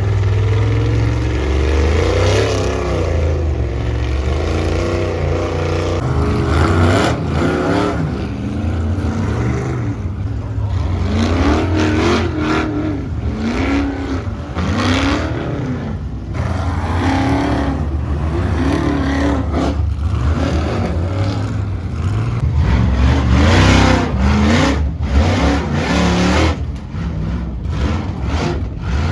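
Ultra4 4400 race car engine revving up and down again and again while crawling through a rock section, with occasional knocks from the car hitting rock.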